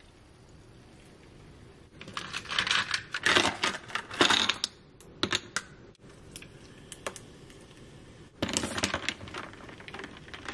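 Ice cubes clattering and clinking into a tall glass of milk for about three seconds, then ice rattling against the glass as the iced latte is stirred near the end.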